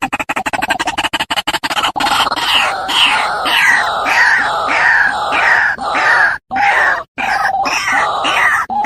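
White-breasted waterhen calling: a fast run of clicking croaks for the first two seconds, then loud repeated "kwaak" calls about two a second, broken by a few brief dropouts near the end.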